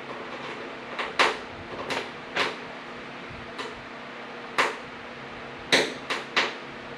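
Sharp clicks and knocks of metal hood latch hardware being handled and tried in its drilled holes, about eight separate knocks at irregular intervals, two of them close together near the end.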